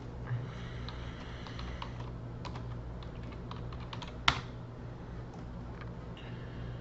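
Computer keyboard typing: scattered keystrokes, with one much louder click a little past four seconds in, over a steady low hum.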